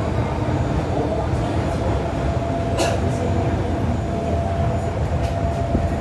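Modernised MTR Metro-Cammell electric train running, heard from inside the car: a steady low rumble with a faint steady whine, and a single sharp click about three seconds in.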